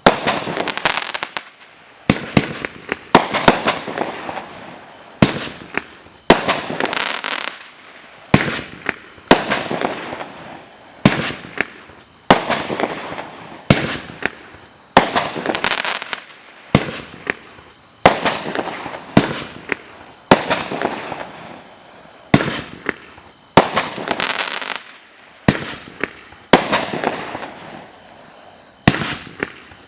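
A 44-shot 1.4G consumer fireworks cake (Pyro Packed PP5480 'Comin' In Hot') firing shot after shot. Sharp bangs come about one every second to second and a half, each trailing off over about a second.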